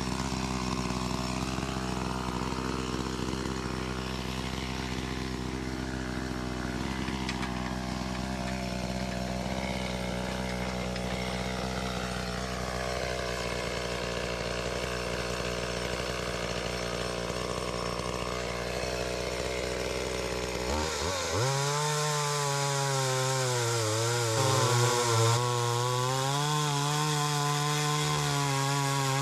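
Chainsaw engine running at a steady low idle, then opened up to full throttle about 21 seconds in. At full speed the pitch dips and recovers repeatedly as the chain works through wood, in clearing typhoon-felled trees.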